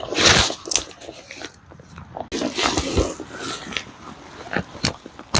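Irregular crunching and crinkling noises in short bursts, loudest at the very start.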